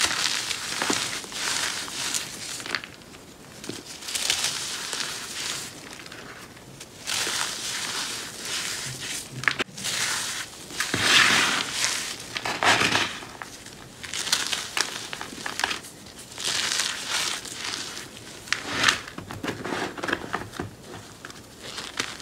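Hands crushing and squeezing dried cornstarch chunks and powder. Repeated dry crunching and crumbling, one squeeze after another every second or two.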